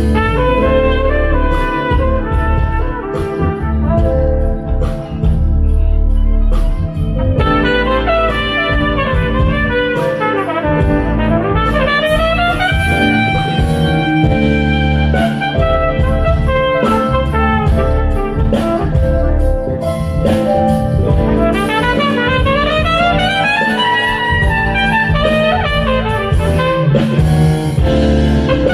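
Jazz band playing with a trumpet lead over drum kit and bass. The trumpet plays fast runs that climb in pitch, twice, a little before halfway and again past the middle.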